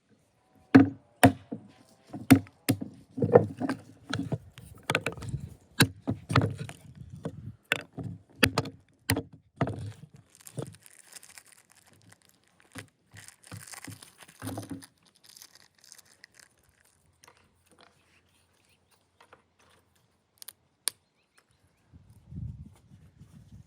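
A series of sharp, irregular knocks or chops, roughly two a second for about ten seconds, followed by rustling and a few scattered light taps.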